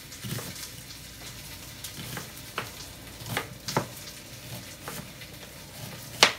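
Knife slicing an onion on a wooden cutting board, a handful of sharp knocks with the loudest near the end, over a steady sizzle of a frozen pork roast searing in an Instant Pot on sauté.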